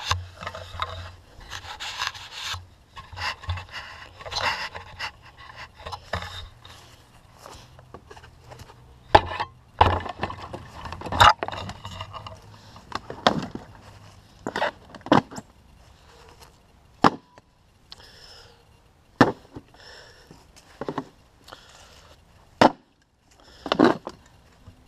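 Close rubbing and scraping against a spear-mounted GoPro camera, then a string of about ten sharp knocks a second or two apart as the spear's knife blade works at a plastic milk jug.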